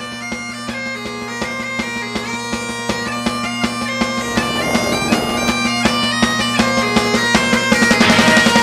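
Music: bagpipes playing a melody over a steady drone, growing gradually louder.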